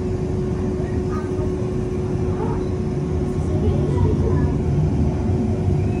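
Steady low drone of machinery inside a passenger submarine's cabin, with one constant hum tone over the rumble. Faint passenger voices murmur underneath.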